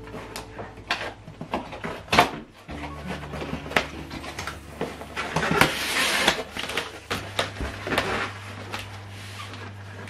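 Cardboard boxes being handled: a run of knocks and taps, with a louder scraping rush about halfway through as the inner box slides out of the shipping carton.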